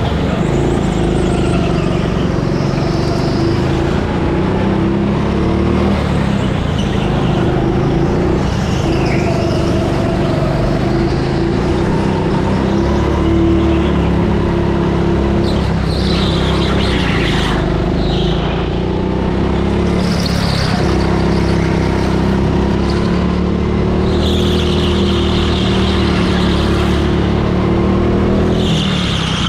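A go-kart engine running at lapping speed, heard from on board the kart. Its pitch wavers a little up and down, with short bursts of higher-pitched noise now and then in the second half.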